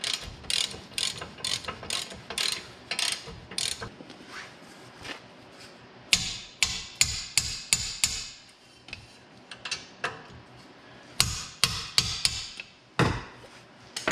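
Ratcheting wrench clicking in several runs of quick, even clicks as the rear brake caliper bracket's 15 mm bolts are tightened, with short pauses between runs.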